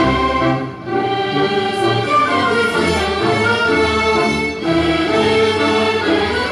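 Symphony orchestra and choir performing classical music in sustained phrases, with brief breaks between phrases.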